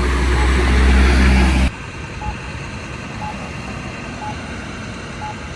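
Loud vehicle rumble from passing traffic that cuts off abruptly under two seconds in, followed by the Campbell accessible crosswalk push button's locator tone: a short beep repeating once a second.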